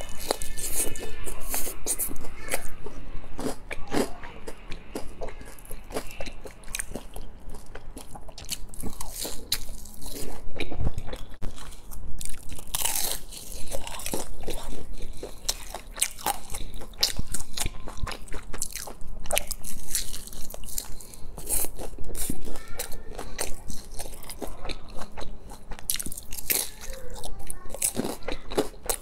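Biting and chewing of crisp fried battered oysters right at a clip-on microphone: a steady, uneven run of crunches and chewing clicks.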